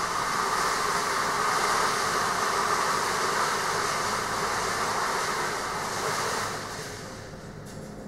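Steady mechanical drone with a low hum underneath, easing off about seven seconds in.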